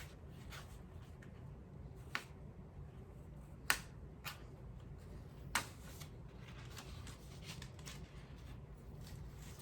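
Hands working paper and tape loose from a freshly pressed puzzle: quiet rustling with a few sharp clicks, four of them spread through the middle, the loudest a little past halfway. A faint steady low hum underneath.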